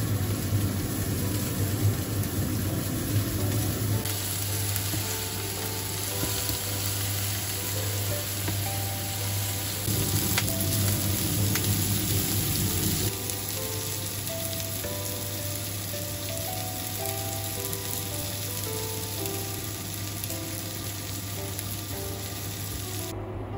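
Hamburger patties sizzling as they fry in a nonstick frying pan, loudest in the first few seconds and again about ten to thirteen seconds in. A soft melody plays faintly underneath.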